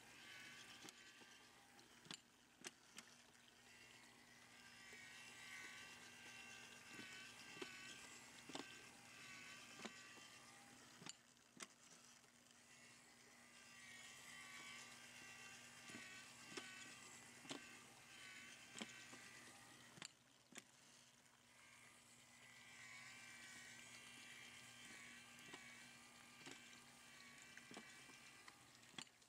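Faint buzz of the small electric motors driving animated Christmas yard figures, with a steady low hum, wavering high tones that swell and fade, and scattered light clicks.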